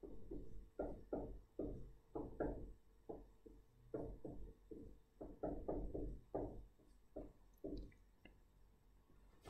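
Calculator keys being pressed in quick succession, a string of soft irregular taps about two to three a second, entering the chi-square sum; the tapping thins out near the end.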